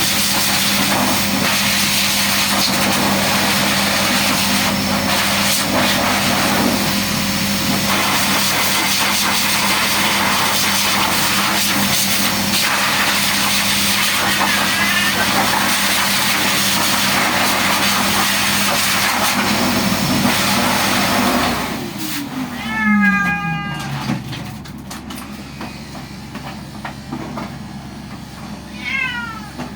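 A loud, steady motor whir with a low hum, typical of an electric grooming tool, cuts off about three-quarters of the way through. A cat then meows twice: one long falling meow, and a shorter one near the end.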